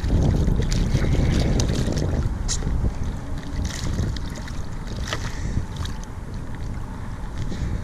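Wind buffeting the microphone in a heavy low rumble, strongest for the first couple of seconds, over water lapping and splashing against a kayak in scattered short splashes and knocks.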